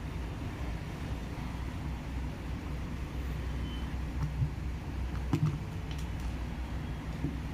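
A steady low rumble with a few light clicks and knocks in the second half, as of the parts of an electric drill being handled.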